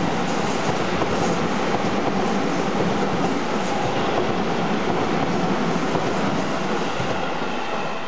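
Seibu 6000 series electric commuter train passing over a level crossing at close range, its wheels clattering on the rail joints. The noise eases off near the end as the last car clears the crossing.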